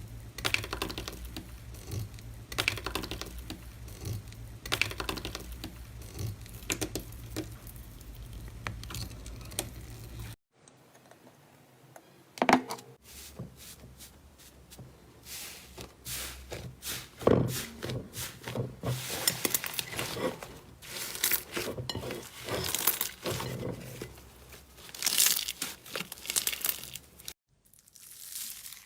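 Slime being squeezed, poked and stretched by hand, giving dense sticky crackling and popping. Two abrupt cuts change the clip, at about ten seconds in and near the end. A steady low hum sits under the first part.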